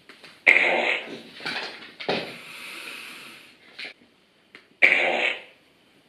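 Fart sound effect from a soundboard, the one named 'Donut Cream Filler': a string of sputtering bursts. A loud burst comes about half a second in, a longer, softer stretch follows in the middle, and another loud burst comes near the end.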